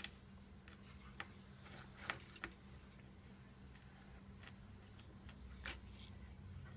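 Small plastic toy parts clicking and snapping as they are handled and fitted together: scattered sharp clicks, the loudest right at the start and a pair about two seconds in, over a faint steady low hum.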